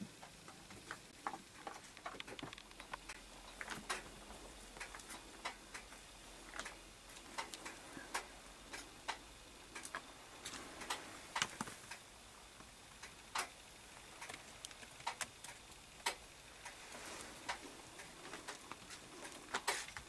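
A cat licking another cat's fur while grooming it: a run of irregular small clicks, sometimes several a second, over a faint hiss.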